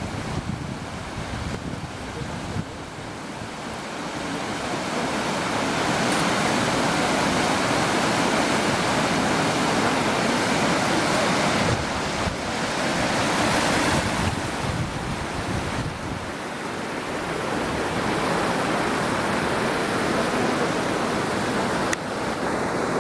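Waterfall on a mountain stream, water rushing as a steady, dense hiss that grows louder a few seconds in and holds.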